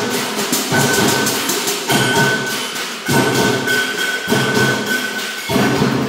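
Band music in a cumbia rhythm, led by drums and percussion, with a held high note coming and going.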